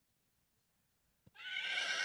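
Near silence, then a faint click and a horse's whinny starting about a second and a half in, a recorded neigh dubbed in for a toy horse.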